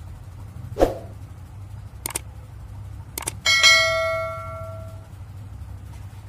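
Subscribe-button animation sound effect: a short thump, a few mouse clicks, then a bright bell ding that rings out for about a second and a half. A steady low hum runs underneath.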